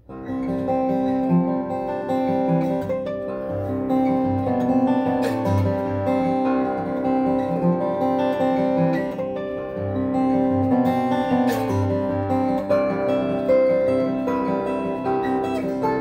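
1994 Taylor 420-R steel-string acoustic guitar played solo, picked notes ringing over one another above a lower bass line, starting right at the beginning.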